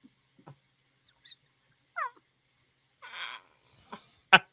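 A man laughing hard, mostly breathless and near-silent, with a short high squeal that falls in pitch about two seconds in, a breathy gasp a second later, and a quick run of sharp laughs near the end.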